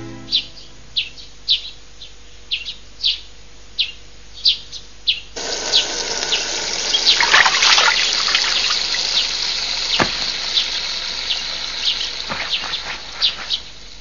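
Small birds chirping in short, quickly repeated calls. About five seconds in, a water tap starts running into a sink, with splashing as hands scoop water onto a face; the birds carry on over it.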